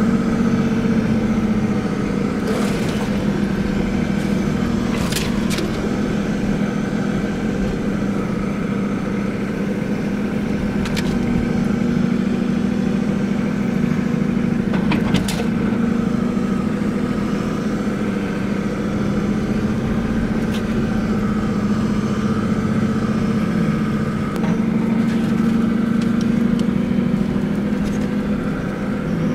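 Toyota Land Cruiser 60 Series engine running steadily while the vehicle drives slowly along a soft sand track, heard from inside the cab. A few sharp knocks and rattles from the body come through over bumps.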